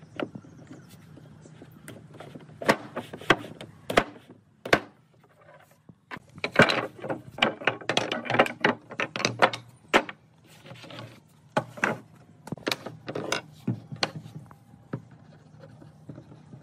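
Wooden boards and rails knocking and clattering against each other and the tabletop as they are handled and set down: a string of sharp wooden knocks, densest about halfway through.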